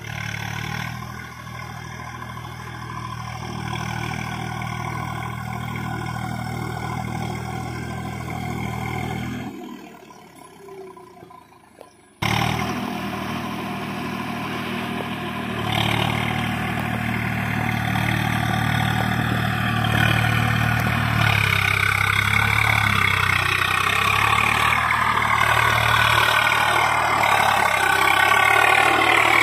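Swaraj 744 FE tractor's three-cylinder diesel engine running steadily under load as it pulls a rotavator through mud. The sound drops away for a couple of seconds around ten seconds in, then comes back abruptly louder and keeps getting louder toward the end.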